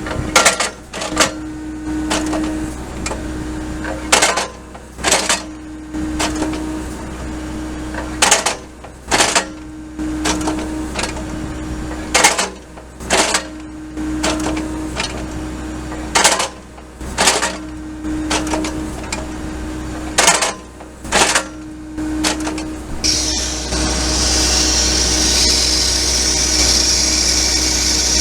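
Hydraulic excavator working a grapple attachment: the engine runs steadily under a whine that comes and goes while the grapple moves, broken by pairs of sharp metal knocks about every four seconds as the jaws or valves reach their stops. About 23 s in, a louder steady high hiss sets in over the engine.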